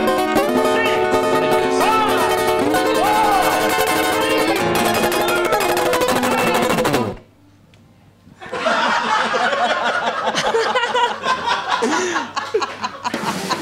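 Guitar music with held, ringing notes that stops abruptly about seven seconds in. After a brief lull, a busy mix of voices and laughter follows.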